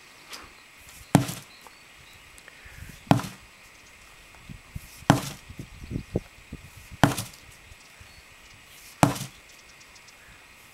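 12-pound sledgehammer strikes, five heavy blows about two seconds apart, with a few lighter knocks between the middle ones.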